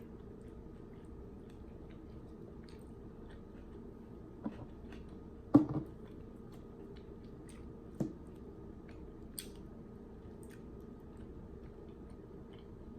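A person chewing a soft chicken fajita taco close to the microphone, with quiet wet mouth sounds over steady background noise. There are a few sharper smacks, the loudest about five and a half seconds in and smaller ones about four and a half and eight seconds in.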